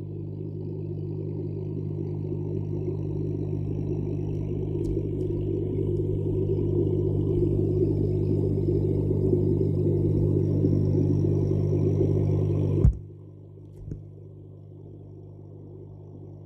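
A steady low mechanical hum that grows slowly louder, then cuts off abruptly with a sharp knock about 13 seconds in. A smaller knock follows a second later, and a much fainter hum remains.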